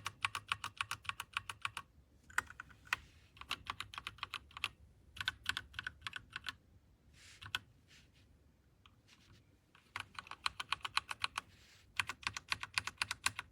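Typing on an RK Royal Kludge RK61 60% mechanical keyboard: quick runs of key clicks at about eight strokes a second, broken by short pauses, with only scattered keystrokes in the middle stretch.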